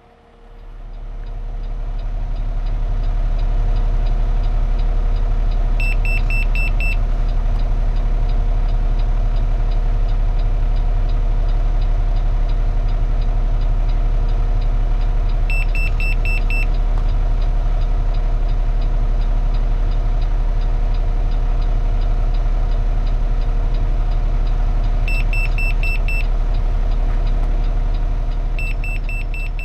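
Refuse truck engine idling with a steady low hum, heard inside the cab, fading in over the first two seconds. Four times, a short burst of rapid high-pitched beeps sounds: the PreView Side Defender II's audible alert that a person has entered the side blind-spot detection zone while the turn signal is on.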